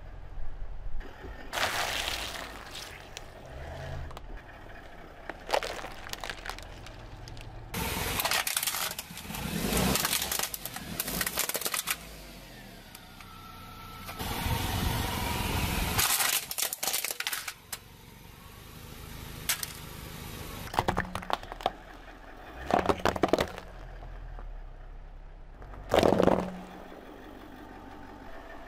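A car tyre rolling slowly over a string of objects (plastic cups and bowls of liquid, a plastic toy, jelly) and crushing them, in several separate bouts of cracking and crunching, with the car's engine humming low underneath.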